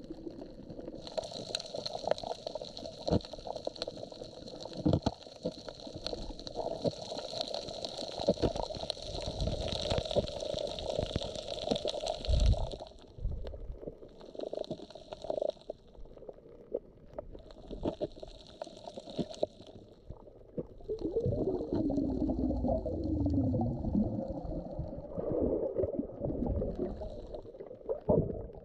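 Muffled underwater water sound while snorkeling on a reef: gurgling and bubbling with a low rumble and scattered crackling clicks, broken by long bursts of hiss.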